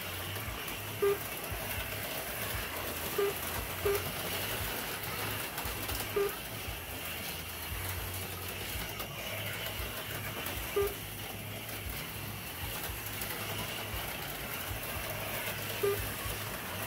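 HO slot cars running laps: a steady whir of the small motors on the track with a hum that swells and drops as the throttles are worked, and about six short low beeps at uneven intervals.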